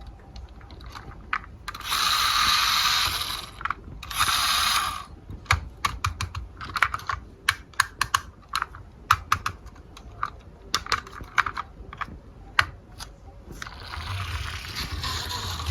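Marbles rolling along a wooden marble run, with two short stretches of rolling early on, then many irregular sharp clicks and clacks as marbles knock against the track pieces and each other, and steady rolling again near the end.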